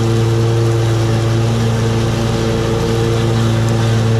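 Gravely 52-inch residential zero-turn mower's engine running with the blades engaged, cutting tall wet grass. It holds one steady pitch and hums along under the load with no lack of power.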